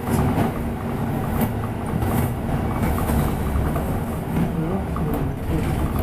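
Steady low rumble of engine and road noise inside a moving double-decker bus, heard from the upper deck, with faint light rattles now and then.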